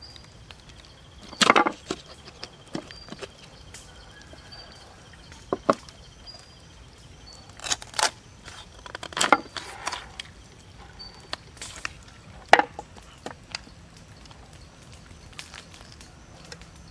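Large knife cutting a whole raw chicken open along the backbone: several sharp cracks and crunches a second or a few seconds apart as the bones give way. A faint high trill and a few short chirps sound in the background.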